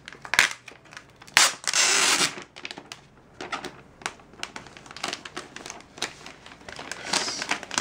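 Thin protective plastic wrap being peeled off a new MacBook Air, crinkling and crackling in short bursts, with the loudest long rustle about one and a half seconds in.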